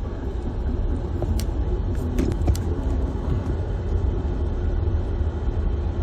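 Steady low rumble of vehicles on a city street, with a few short sharp clicks in the middle.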